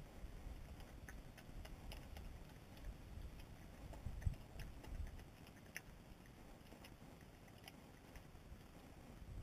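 European badger eating peanut butter off a stone step, heard as faint, irregular clicks of chewing and licking with a few soft low thumps.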